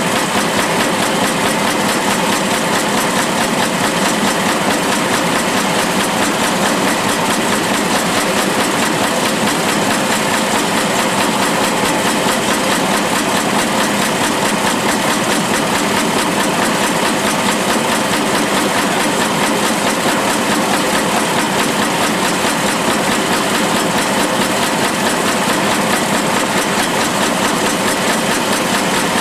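Shaking table running: a loud, steady mechanical clatter from its reciprocating drive head, knocking in a fast, even rhythm as it shakes the deck.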